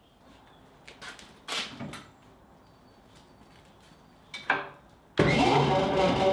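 A few separate clanks and knocks of a steel bar being handled. About five seconds in, a loud steady machine noise starts abruptly, a motor running with a hum of several steady tones.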